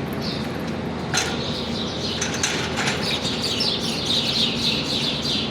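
Small birds chirping in quick series of high notes over a steady low hum, with a few short clicks.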